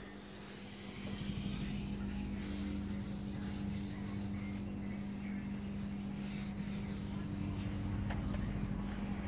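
A steady low mechanical hum with a constant tone, like a motor or engine running.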